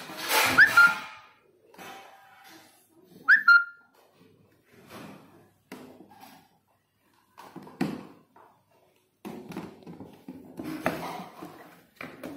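Plastic toy-kitchen parts being handled and pressed together: scattered clicks, knocks and rustling. Two short whistle-like chirps, each dropping in pitch, come about three seconds apart and are the loudest sounds.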